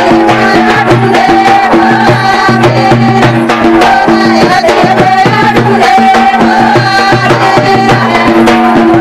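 Banjara Holi Lengi folk music played loud, with drums keeping a steady beat under a wavering melody.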